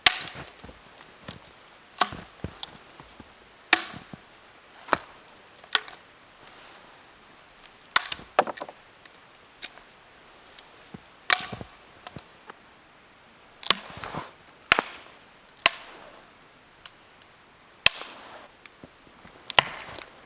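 Sharp wooden knocks and cracks of wood being chopped or broken up, about fifteen strikes at uneven intervals a second or two apart.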